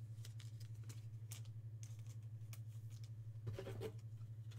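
Faint papery flicks and rustles of baseball trading cards being handled and peeled apart one by one, over a steady low hum. A brief murmur of voice comes about three and a half seconds in.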